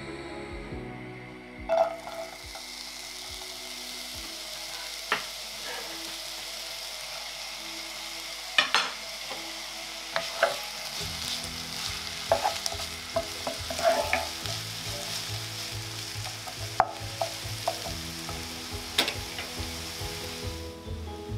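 Diced red onions frying in oil in a nonstick pan: a steady sizzle that starts sharply about two seconds in, with knocks and scrapes as a wooden spatula stirs them.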